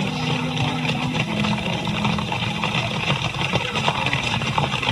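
Vehicle engine running steadily, a continuous low hum with road or wind noise over it.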